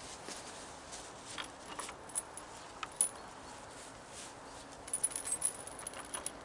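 Light metallic clicks and jingling: a few scattered ticks, then a busier run of jingles about five seconds in.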